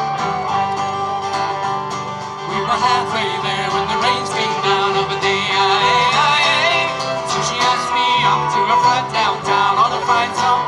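Folk band playing a lively tune on acoustic guitar, bass guitar and fiddle.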